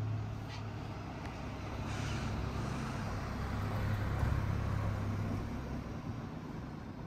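A road vehicle passing, heard as a low rumble that swells about two seconds in and eases off near the end.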